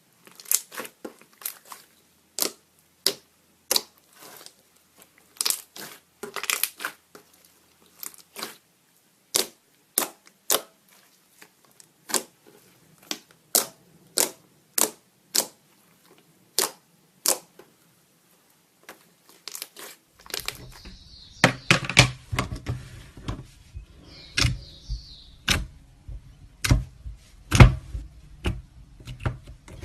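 Slime being poked and squeezed, giving sharp, irregular clicks and pops. From about twenty seconds in they come thicker and fuller, with squelchy handling noise.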